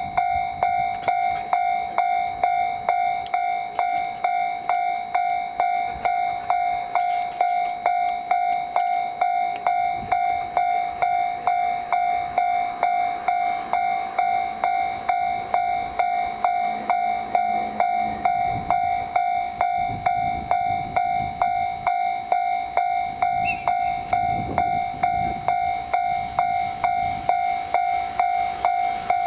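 Level-crossing warning bell ringing steadily at about two strikes a second. The low rumble of an approaching train grows beneath it in the second half.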